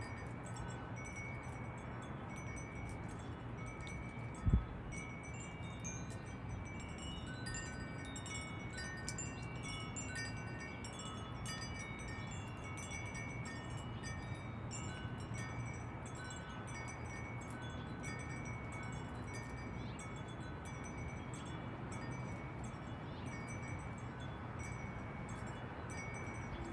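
Wind chimes ringing, with scattered bell-like tones that keep returning at the same few pitches, and a single low thump about four and a half seconds in.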